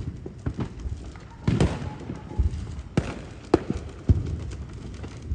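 Fireworks going off: an irregular string of booms and sharp pops, with a short spell of crackling about a second and a half in.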